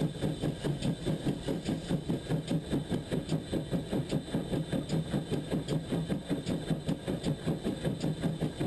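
GWR pannier tank steam locomotive running at a steady speed, heard from the front of the engine as an even rhythmic beat of about four to five pulses a second.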